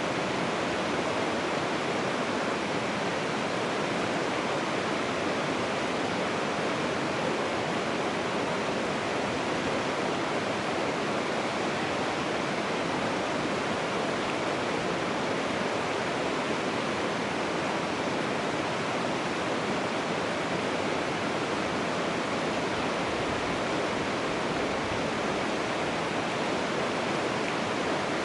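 Steady, even rush of flowing water, like a nearby creek or cascade, running without a break.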